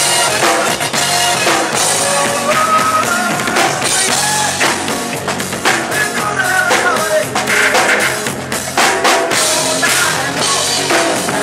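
Loud dance music from a DJ with a live drum kit played along on top: a melody line over a steady stream of drum and cymbal hits.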